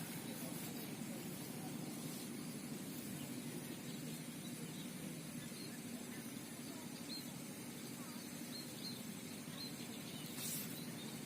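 Quiet rural outdoor ambience: a steady low hiss with a few faint, short high chirps scattered through it.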